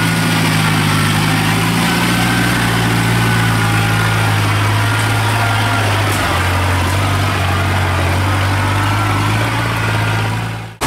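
Engine of a tracked rice-hauling carrier running steadily as it crawls through mud loaded with sacks of rice, with a faint wavering whine above the hum. The engine note shifts slightly partway through, and the sound fades out quickly at the very end.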